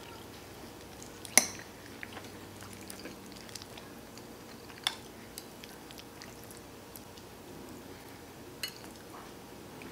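Metal spoon clinking against a glass baking dish while scooping baked macaroni and cheese: three sharp clinks a few seconds apart, the first the loudest, with a few smaller faint ticks between.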